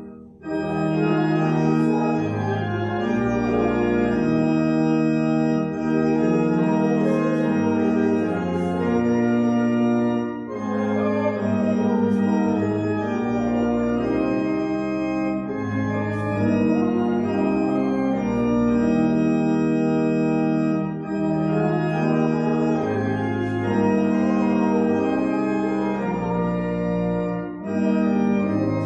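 Organ playing held chords over moving bass notes, phrase by phrase. There are short breaks between phrases about ten and twenty seconds in and again near the end.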